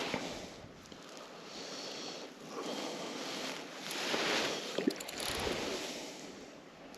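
Water sloshing and splashing in uneven surges as a hooked trout is played in close.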